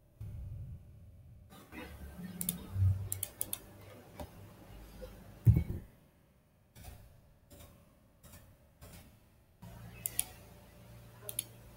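Scattered sharp clicks of a computer mouse and keyboard as values are entered into fields, in two clusters, about a third of the way in and near the end. A single low thump about halfway through is the loudest sound.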